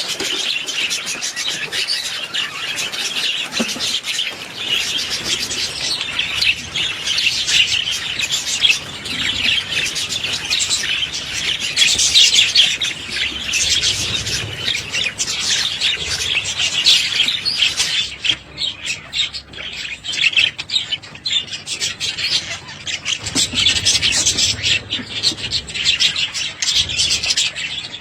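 Several budgerigars chattering and warbling together in a dense, continuous twitter of high chirps and squawks, thinning for a moment about two-thirds of the way through before picking up again.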